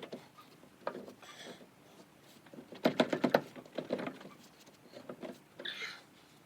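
Clicks and knocks of tools and parts being handled during work on a car's wheel hub. A quick run of sharp, loud knocks comes about three seconds in, with scattered lighter clicks around it.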